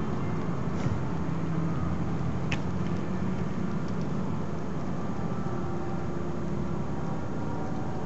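Low, steady rumble of street traffic: a heavy vehicle's engine running as it pulls away, with cars passing. A short sharp click about two and a half seconds in.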